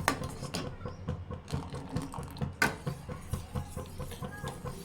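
A spoon stirring sweetened milk in a metal pan, with irregular light clinks and taps against the pan and two sharper clinks, at the start and about two and a half seconds in.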